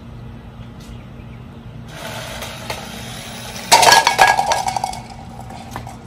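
A Terrasect RC toy car running over concrete crashes into a set of clear plastic bottles standing like bowling pins about two thirds of the way in, knocking them down. The bottles clatter and tumble across the concrete for about a second, with quick sharp hits that are the loudest sound here.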